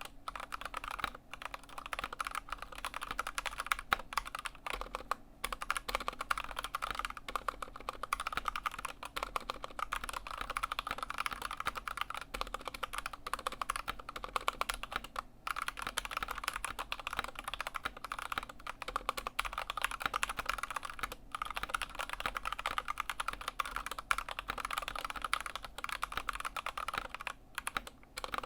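Continuous fast typing on an Anne Pro 2 mechanical keyboard fitted with stock, unmodified Kailh Box Red linear switches: a dense run of key clacks broken by a few brief pauses.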